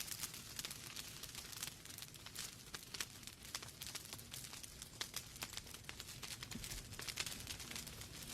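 Wood fire in a fireplace crackling: irregular sharp pops and snaps over a soft steady hiss of burning logs.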